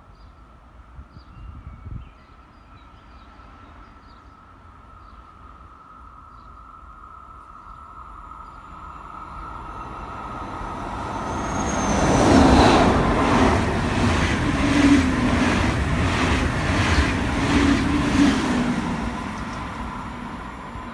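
Red SBB electric locomotive hauling double-deck passenger coaches approaches and runs through the station at speed. A rising rush of wheels on rail becomes a loud, rhythmic clatter of wheels over the track, about two beats a second, for several seconds, then fades as the train recedes. Faint bird chirps come before it.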